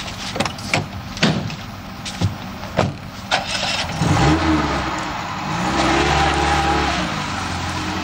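A few sharp knocks, among them a van's rear door shutting, then the van's engine starts about four seconds in and revs up twice.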